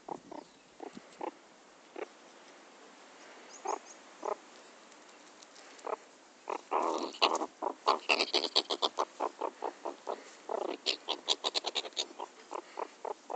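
Pet meerkat making short, repeated grunts as a hand teases it: a few scattered calls at first, then from about halfway a rapid, louder run of about four or five a second, with higher, sharper notes mixed in.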